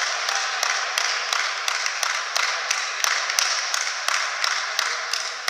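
Hands clapping in a steady rhythm, about three or four claps a second, over a hiss of crowd noise in a sports hall.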